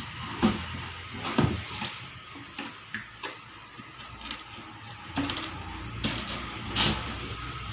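Irregular knocks, clicks and light rustling of a motorcycle helmet and its packaging being handled, about eight separate knocks spread over several seconds.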